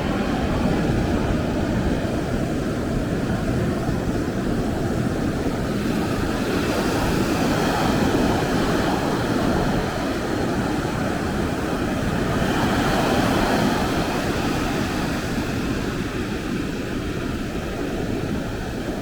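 Ocean surf: waves washing in over a steady low rumble, swelling louder about seven seconds in and again about twelve seconds in.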